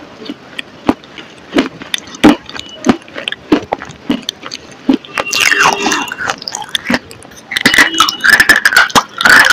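Close-miked mouth-eating sounds: separate wet lip smacks and clicks for the first half, then a dense run of crunching and chewing that gets louder near the end.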